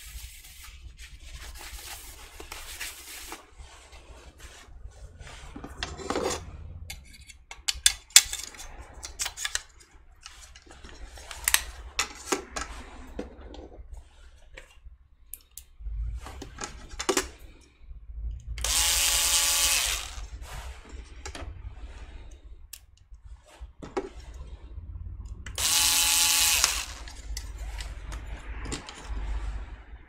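Electric screwdriver whirring in two short runs, the first about two seconds long some 18 seconds in and the second about a second long near 26 seconds, working the screws of a 2.5-inch laptop hard drive and its metal bracket. Between the runs are light clicks and rattles of the drive and bracket being handled.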